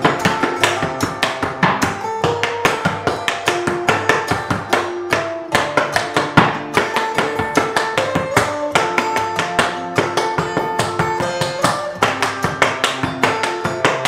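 Metal taps of tap shoes striking a wooden tap board in quick, rhythmic clicks, danced over an acoustic guitar cover with plucked notes.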